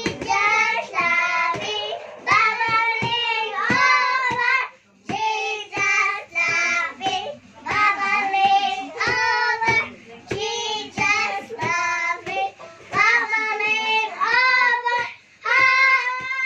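Two young girls singing loudly together in short phrases, with brief pauses between them.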